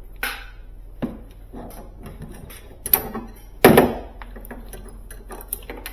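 Hand tools at work on a refrigerator's refrigerant tubing: a run of clicks and metallic knocks, with a louder scraping clank a little over three and a half seconds in.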